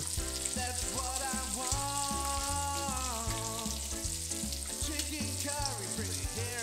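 Bacon strips sizzling and spitting in a preheated cast iron skillet, a steady hiss of fat frying. Background music with a regular bass beat and a melodic line plays over it.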